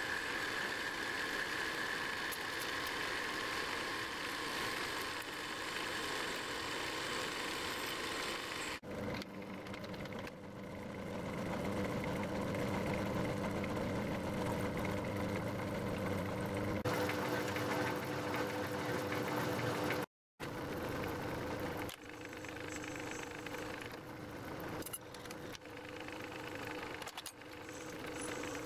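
Metal-turning lathe running under power, cutting aluminium bar stock: a steady machine hum with a few held tones. The sound changes character a couple of times and drops out briefly about two-thirds of the way through.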